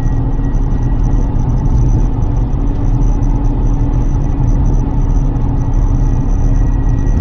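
Lotus Carlton's twin-turbo 3.6-litre straight-six and road noise at a steady pace, a constant low rumble with no revving up or down.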